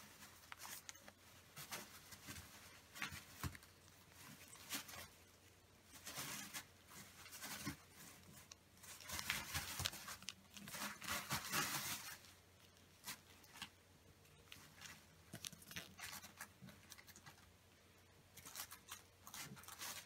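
Folded origami paper crinkling and rustling in the hands in short, scattered crackles. It is loudest from about nine to twelve seconds in, as the palms press the paper bird flat and rub along its creases.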